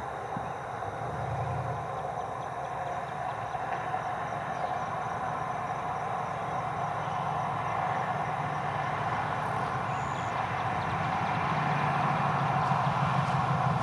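Distant road traffic: a steady hum of vehicles on a road, slowly growing louder.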